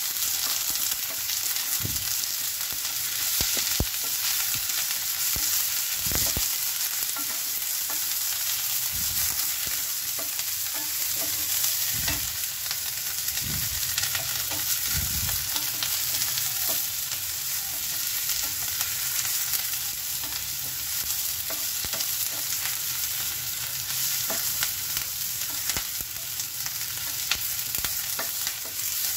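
Chopped onions and curry leaves sizzling steadily in hot oil in a steel pan. A wooden spatula stirs them, scraping and knocking against the pan now and then.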